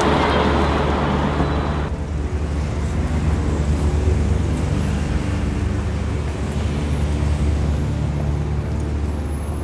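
Steady low rumble of city street traffic, with low held tones under it; a brighter layer of noise drops away about two seconds in.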